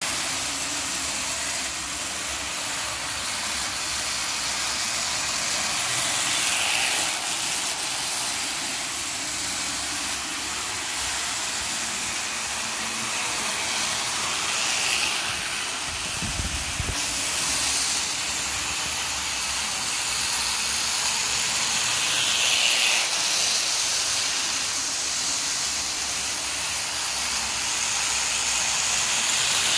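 Postwar Lionel O scale steam locomotive and freight cars running on three-rail track, with a steady whirring rumble of the motor and wheels. The sound swells about every seven or eight seconds as the train circles the loop.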